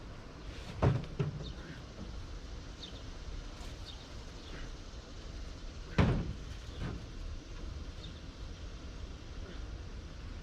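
Two sharp thumps, one about a second in and one about six seconds in, over a steady low background rumble. Faint, brief bird chirps come and go.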